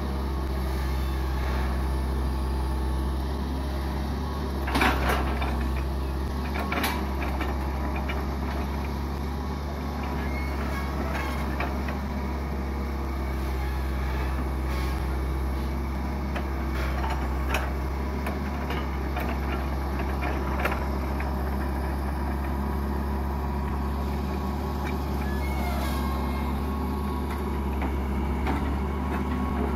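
Diesel engine of a Hitachi EX120 long-arm excavator running steadily with a low hum as the machine digs and shapes a ditch bank. A few sharp knocks are heard over it, the loudest about five seconds in.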